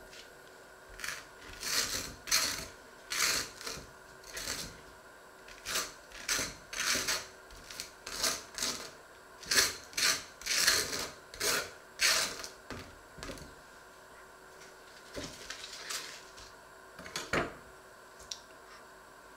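Table knife spreading butter on a slice of bread on a wooden cutting board: a run of short raspy scraping strokes, a little under two a second, that stops about two-thirds through, with one more stroke near the end.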